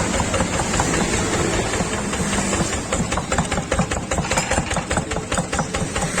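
Yanmar TF65H single-cylinder diesel engine running steadily, with a rapid, even knocking beat from its firing strokes that stands out more clearly in the second half.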